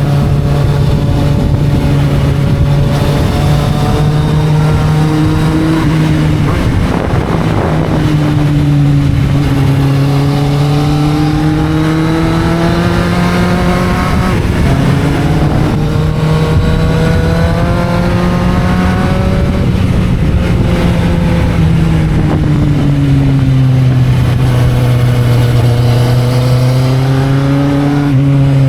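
Kawasaki Z750 motorcycle engine and exhaust under way at moderate revs, the pitch climbing gently and then dropping several times as it pulls through the gears and eases off.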